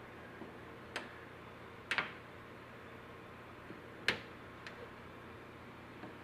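Sharp plastic clicks and snaps as a bug shield's mounting clips are worked into the hood: a double snap about two seconds in and a louder single one about four seconds in, with a few lighter clicks between.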